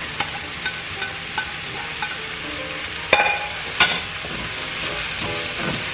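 Sliced pork belly with onion, garlic and ginger sizzling steadily in oil in a frying pan, with light taps of a stirring utensil and two louder metal clanks about three and four seconds in.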